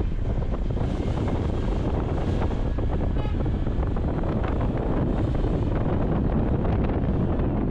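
Steady wind rushing over the microphone, mixed with the road and engine noise of a moving vehicle.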